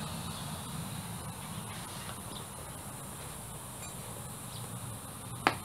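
Browned beef and its juices sizzling and simmering in a cast-iron Dutch oven over charcoal, a low steady hiss with faint crackles. A single sharp click about five and a half seconds in.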